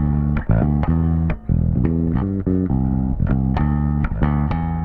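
Electric bass guitar playing a riff of plucked, ringing notes, several a second. The bass is a 1988 Samick anniversary-edition bass rewired passive with Wilkinson MWPB/MWJB P- and J-style pickups.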